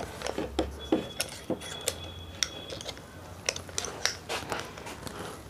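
Irregular small metallic clicks and clinks as a bolt and hand tools are handled against the parts of an RO diaphragm booster pump during reassembly.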